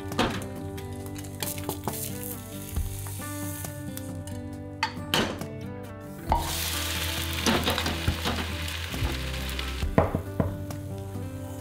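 An oatmeal pancake sizzles in a nonstick frying pan, and the pan knocks a few times as it is handled. The sizzle is strongest from about six seconds in until about ten seconds. Soft background music plays throughout.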